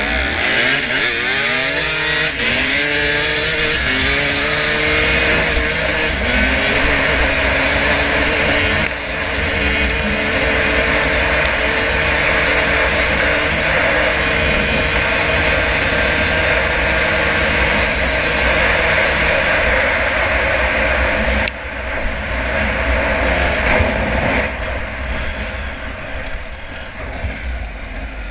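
Dirt bike engine revving hard as the bike accelerates, rising in pitch in several steps as it shifts up through the gears, then held at high revs at speed. A low wind rumble on the helmet-mounted microphone runs underneath. About two-thirds of the way through the sound drops suddenly and turns quieter, with engines heard from further off.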